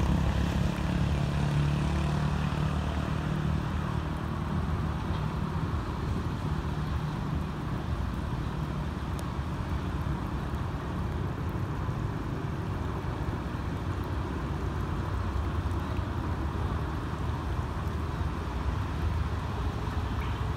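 Steady outdoor traffic noise from cars on wet roads, with a vehicle's engine rumble strongest near the start that eases off over the first few seconds.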